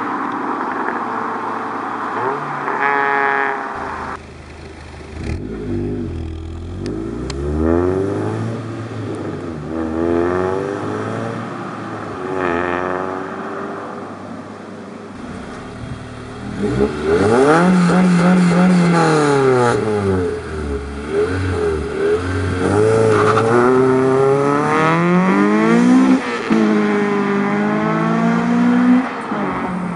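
Exhaust note of a 2006 Acura RSX Type-S's four-cylinder engine under hard acceleration, revving up and dropping back several times as it shifts through the gears, loudest in the second half.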